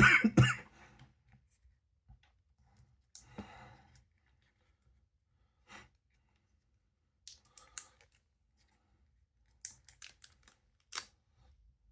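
Blind-box packaging being handled and torn open: a loud rustle at the start, then short scattered crinkles and sharp clicks with quiet gaps between them.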